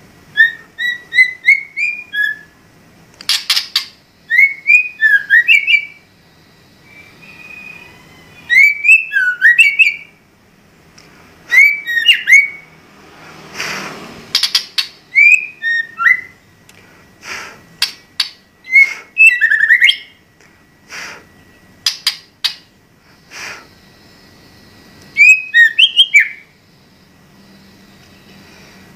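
White-rumped shama (murai batu) singing in short bursts every second or two: rising, sweeping whistled phrases mixed with sharp clicking notes.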